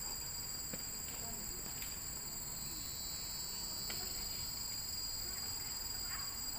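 Steady, high-pitched drone of a chorus of insects, two unbroken high tones that hold through without a pause.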